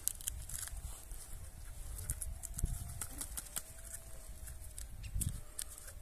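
Soil crumbling and roots rustling and snapping as bare hands pull apart and shake a freshly dug elecampane root clump: scattered crackles with a few dull thuds, the clearest about halfway through and again near the end.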